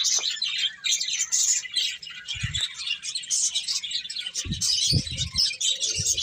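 A flock of small birds chirping and twittering in a dense, continuous chatter, many quick high calls overlapping. A few short low bumps sound about two and a half seconds in and again near the end.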